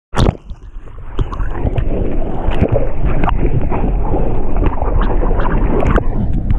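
Water rushing and splashing right at the microphone as a surfboard runs through the water, with a sudden loud splash at the very start as a wave washes over. A steady low rumble of wind and water on the microphone runs under frequent short splashes and spray hits.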